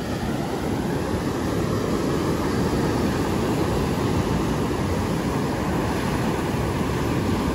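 Surf breaking and washing up the beach: a steady rush of wave noise.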